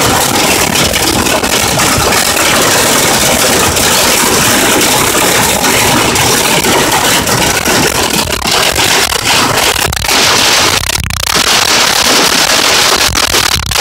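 Hail pelting a car's roof and windshield, heard from inside the cabin: a loud, dense, unbroken clatter of impacts.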